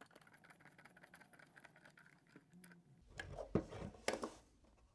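Faint small clicks and scratches of M2.5 screws being driven by hand into a 3D-printed plastic case lid, with a few louder clicks and knocks about three to four seconds in.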